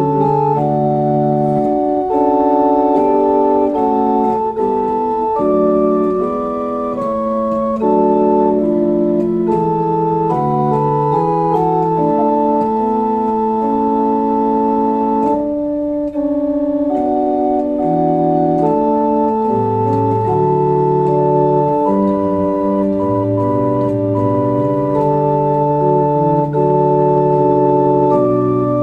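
Pipe organ playing slow, sustained chords that move from one held chord to the next, with a brief break between phrases a little past halfway.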